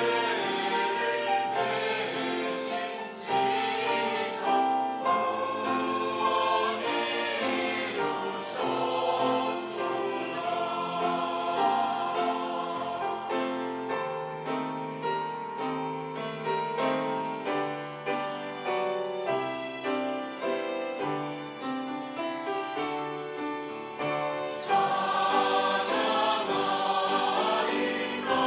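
Church choir singing in parts with accompaniment; the sound thins to a softer passage about halfway through, then swells back to full voice near the end.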